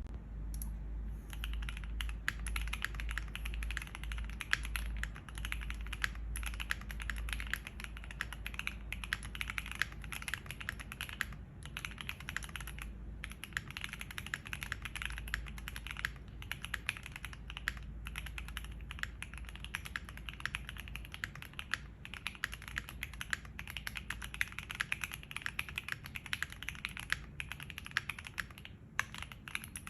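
Fast continuous typing on a Keychron Q1 mechanical keyboard with stock Gateron Phantom Silver linear switches, an aluminium plate, tape mod and ABS doubleshot keycaps: a dense stream of keystroke clacks with brief pauses now and then.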